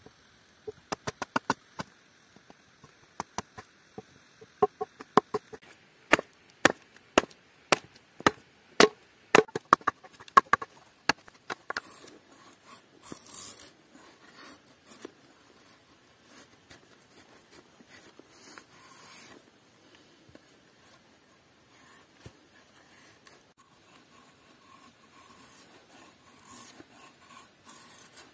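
A string of sharp, ringing wooden knocks over the first eleven seconds or so, as a hatchet strikes a wooden plate blank. Then comes the quieter, scratchy scraping of a knife carving shavings out of the wood.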